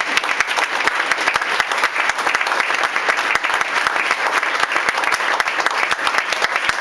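Audience applauding: the dense, steady clapping of a roomful of people.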